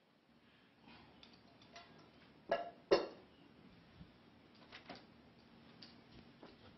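Plates and dishes clinking and knocking together as they are gathered up off a table, with two louder clatters close together about two and a half and three seconds in, then lighter clinks.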